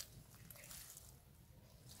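Near silence, with a few faint, brief soft noises in the first half and again near the end.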